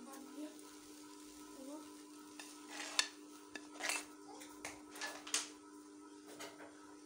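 Electric clothes iron being pushed and scraped over cloth on a pressing table, with several sharp clicks and knocks, the loudest about three seconds in and a cluster after it. A steady hum runs underneath.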